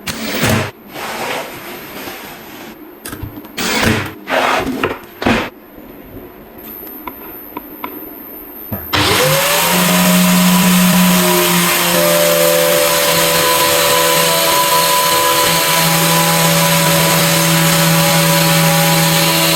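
Scattered knocks and clatters of parts being handled. About nine seconds in, an angle grinder switches on, spins up quickly and runs at a steady high whine.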